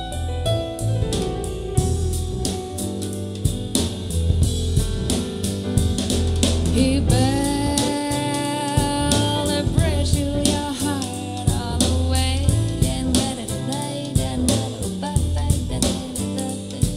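Soul-jazz song with a sung vocal over drum kit and bass, played back through in-ear monitors as a sound demo. The singing comes in about seven seconds in.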